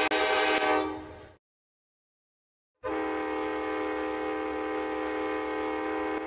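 Locomotive air horn sounding a steady multi-note chord: one blast fades out about a second in, and after a gap of silence a second long blast starts about three seconds in and holds to near the end, with a low rumble beneath.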